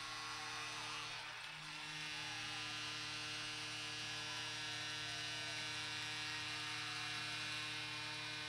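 Steady electrical mains hum on the broadcast audio feed: a constant low buzz made of several held tones, with no commentary over it.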